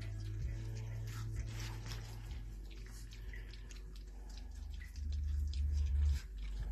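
Litter of Catalan sheepdog puppies lapping and smacking at gruel in a stainless steel feeding pan, weaning onto their first soft food: a busy patter of small wet clicks and slurps, over a low rumble that swells about five seconds in.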